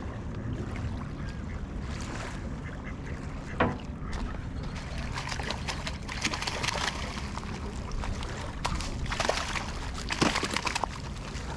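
Splashing and rustling as a hooked fluke is dragged through trash-choked shallows, with a steady low rumble underneath; the sharpest knocks come about three and a half and ten seconds in.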